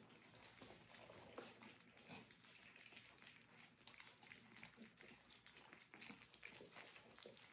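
A litter of three-week-old French bulldog puppies eating soft food from a feeding mat: faint, rapid, irregular lapping and smacking of many small mouths.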